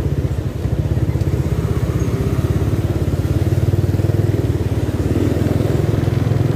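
Motorcycle engine running steadily at low speed, its exhaust pulsing rapidly and evenly.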